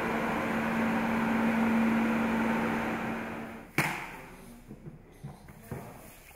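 Large studio wind-machine fan running: a steady rush of air over a constant low motor hum, fading away after about three and a half seconds. A single sharp knock comes just after, followed by a few faint knocks.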